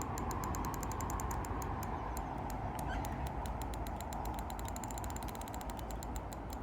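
Fishing reel clicking in a rapid run of sharp ticks while a small common carp is played on the rod; the ticks come faster about five seconds in. A steady hiss runs underneath.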